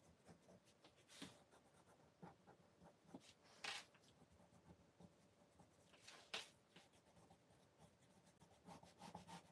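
Faint scratching of a pencil drawing on paper, a series of short strokes with a few louder ones spread through.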